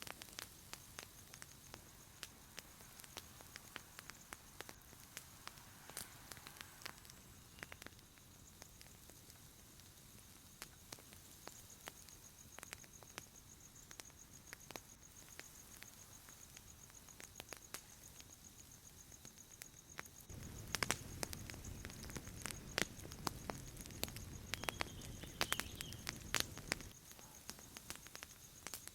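Campfire crackling with irregular sharp pops and clicks over a faint steady high whine. About twenty seconds in, a low rumble joins for several seconds and the pops come thicker and louder.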